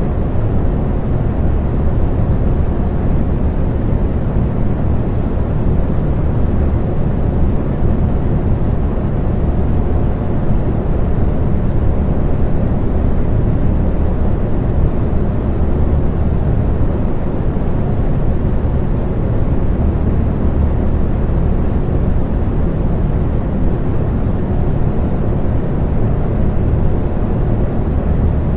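Electric fan running steadily: an even, low rushing hum of moving air, with faint steady tones above it and no change.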